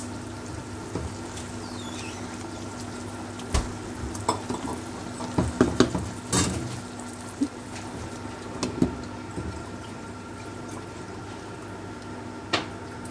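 Chicken korma sauce bubbling and sizzling in a non-stick pan over a steady hum, with a spatula stirring and knocking against the pan in a cluster through the middle and a few single sharp clicks later on.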